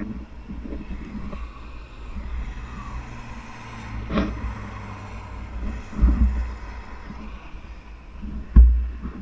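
Wind buffeting the microphone of a helmet-mounted GoPro during a parachute descent: a steady low rumble with sharper gusts about four and six seconds in and the strongest gust near the end.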